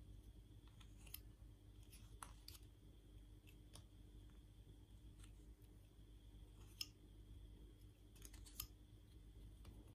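Faint, irregular scraping and clicking of a hobby knife blade cutting and trimming the edge of a hole in a small piece of blue PVC pipe, with the sharpest clicks about seven and eight and a half seconds in, over a low steady hum.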